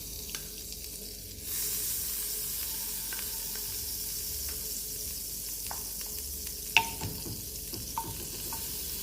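Butter sizzling as it melts in a hot frying pan, a steady hiss that gets louder about a second and a half in. A few light clicks and one sharp knock about seven seconds in.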